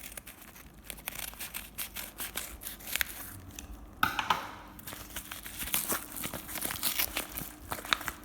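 Packaging being torn open and crinkled by hand, a dense run of crackles with a sudden louder tear about four seconds in.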